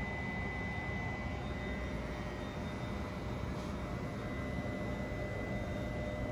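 Steady hum and rumble of a store's ventilation, with a thin, steady high tone running through it.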